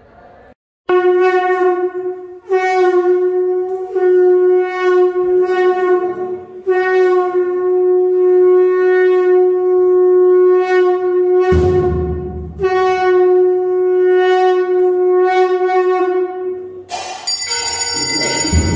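Conch shell (shankh) blown in a series of long, steady blasts on a single pitch, with short breaks for breath between them, as is done to open an aarti. Near the end it gives way to ringing temple bells and drums.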